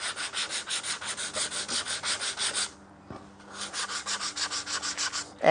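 100-grit sandpaper on a hand sanding block rubbed over a pine knife block in quick back-and-forth strokes, about seven a second, with a short pause about halfway through.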